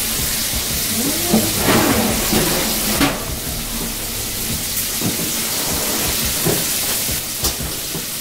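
Chicken frying in hot oil in a pot on an electric stove, a steady sizzle, with a few light knocks of kitchenware.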